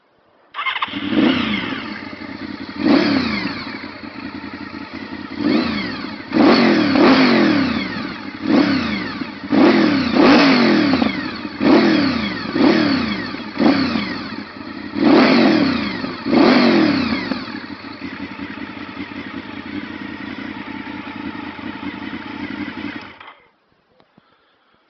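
Honda VFR750 RC36-II V4 motorcycle engine through a Scorpion aftermarket exhaust, starting up and being blipped in more than a dozen short throttle revs, each falling back quickly. It then idles steadily for several seconds and cuts off suddenly.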